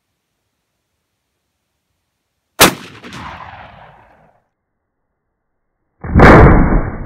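Two shots from a Hatsan shotgun firing shot cartridges, about three and a half seconds apart. The first is a sharp crack whose echo dies away over about a second and a half; the second, about six seconds in, is louder and longer, its rumble still rolling on at the end.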